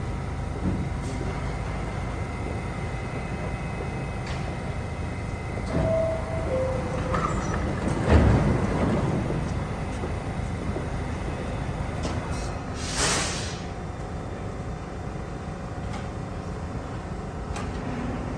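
New York City subway train at a station platform: a steady low rumble, a two-note descending door chime about six seconds in, a loud thud just after eight seconds, and a short burst of air hiss around thirteen seconds.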